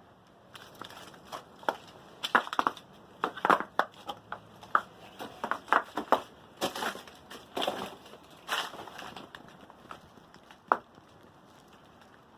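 Irregular crunching and crackling, like footsteps over dry debris. A single sharp click comes near the end.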